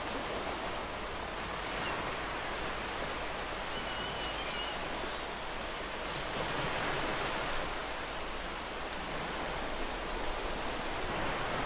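Wind and small choppy waves on shallow sea water: a steady rushing wash that swells and eases gently, with a faint brief high chirp about four seconds in.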